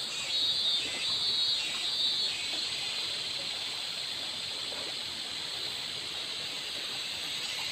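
Shallow river running over riffles, a steady rushing hiss, with a high buzz that swells four or so times in the first few seconds.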